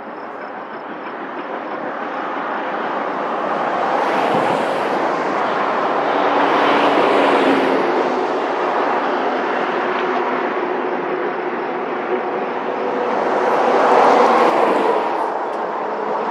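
Road traffic passing over the bridge: tyre and engine noise from a few vehicles, each swelling up and fading away over several seconds, loudest a few seconds in and again near the end.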